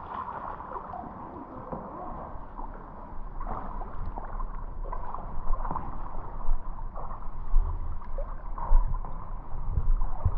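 Pool water sloshing and lapping close to a camera held at the water's surface, with uneven small splashes throughout. Low rumbling knocks of water against the microphone build up and grow louder in the second half.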